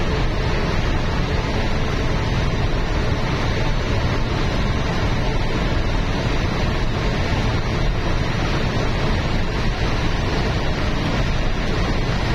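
Steady rush of wind and tyre noise from a vehicle travelling at speed on a smooth road, even and unbroken throughout.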